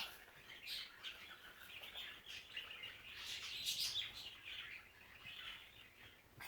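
A small pet snorting while it drinks water: an irregular string of short, noisy snorts.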